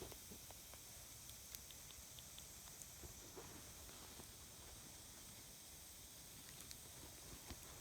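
Near silence with faint, scattered single crackles from a small campfire of wet brushwood that is barely burning and dying down.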